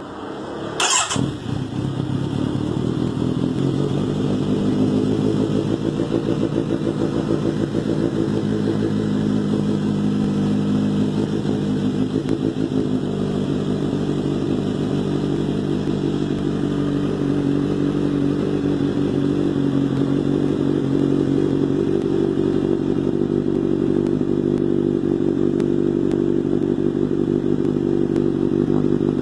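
Kawasaki Z900 inline-four engine with an Austin Racing aftermarket exhaust starting up about a second in with a sharp burst, then settling into a steady idle.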